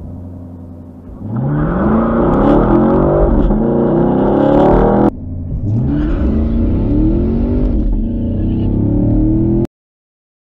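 2018 Chevrolet Camaro SS's 6.2-litre V8 running steadily on the start line, then launched at full throttle, its revs climbing and dropping through quick upshifts. About five seconds in the sound breaks off and a second full-throttle run climbs through the gears again, then cuts off suddenly near the end.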